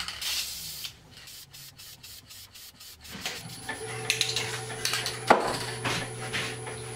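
Wood lathe starting up about three seconds in and then running with a steady hum, with rubbing and scraping as a second coat of finish is worked onto the spinning oak barrel; a short hiss near the start and a single sharp click partway through.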